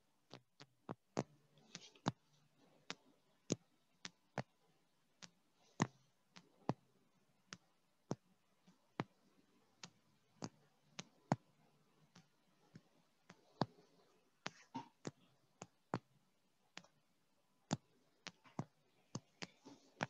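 Faint, irregularly spaced sharp clicks, about one or two a second, over a low hiss.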